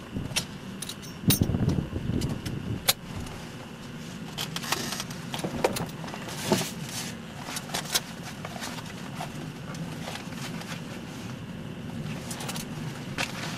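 Scattered clicks, taps and rattles of hands working switches, controls and headsets in a small plane's cockpit with the engine not yet running, and a low thump of movement about a second in.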